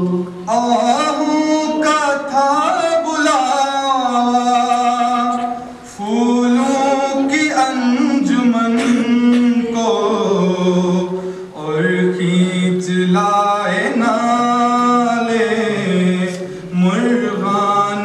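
Unaccompanied male singing of an Urdu nazm (a tarana), in long held, gliding phrases that pause briefly twice.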